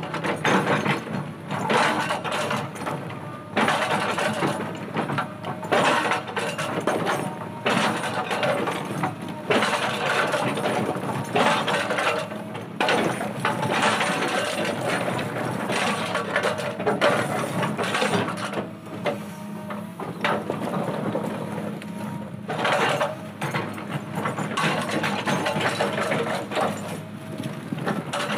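Hydraulic rock breaker on a Caterpillar 320D excavator hammering rapidly into boulders, in long runs broken by short pauses, over the steady run of the excavator's diesel engine.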